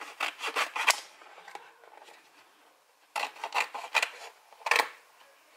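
Scissors cutting a sheet of paronite gasket material, snipping out a homemade engine-cover gasket: a quick run of about six snips in the first second, then another run of snips from about three seconds in.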